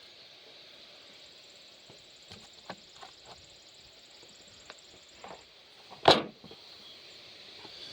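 Scattered light clicks and knocks of a carburetor and small tools being handled and set in place, with one much louder sharp knock about six seconds in.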